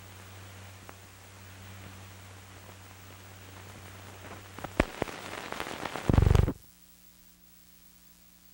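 Old archival recording's soundtrack noise: hiss and mains hum with scattered clicks. It builds to crackling and sharp pops, then a loud low crackling burst about six seconds in, after which it drops suddenly to a faint hum.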